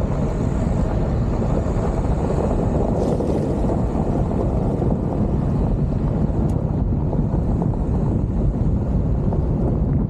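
Steady rush of wind and road rumble from a vehicle driving along a gravel road, heard through a camera microphone mounted on the outside of the vehicle, with wind buffeting the microphone.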